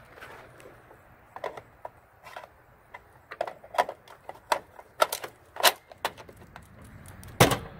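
Metal clicks and clacks of a .50 BMG rifle being loaded and its action worked, a scatter of light clicks building to one loud clack near the end.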